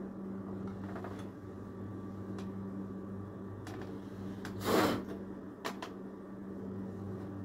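Plastic parts of a sewing machine being handled: a few light clicks and one louder scrape or clatter a little under five seconds in, over a steady low hum.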